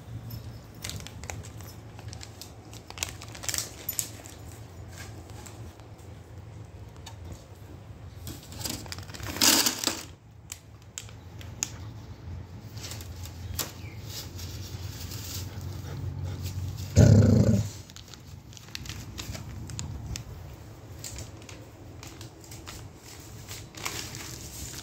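A dog eating dry dog biscuits, with scattered crunching clicks as it chews the kibble. There is a short loud burst about two-thirds of the way through, and a low steady hum underneath.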